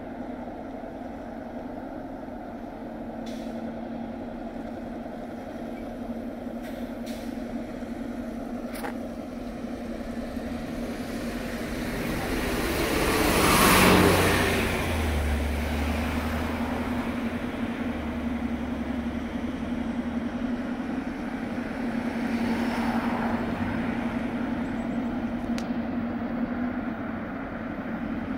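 Diesel locomotives, an EMD GP38-3 and GP38-2, running with a steady low drone as they approach. About halfway through a vehicle passes close by, its sound swelling and fading, followed by a deep rumble.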